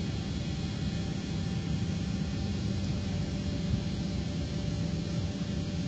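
Steady low rumble of a container ship under way, heard on its open foredeck, with faint steady hums above it and wind on the microphone.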